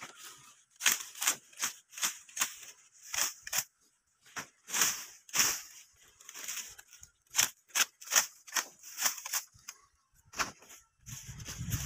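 Dry sugarcane leaves crackling and rasping as a small hand blade strips them from cut cane stalks, in quick irregular strokes about two or three a second. A low rumble comes in near the end.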